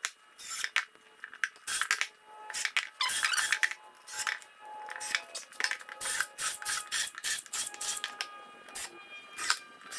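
Loose metal screws clinking and rattling against a glass jar and the wooden seat as they are picked out by hand, a quick run of short, sharp clicks.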